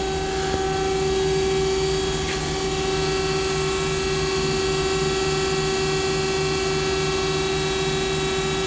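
Hyundai-Kia SKT-160A CNC lathe running with its spindle at high speed, about 4,500 rpm: a steady whine of several fixed tones over the drone of its hydraulic unit, which is a little loud, with a low pulse repeating evenly a few times a second.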